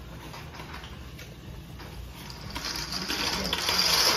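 Dry macaroni pouring from its box into a pot of boiling water: a rushing patter that builds and grows louder from about halfway in.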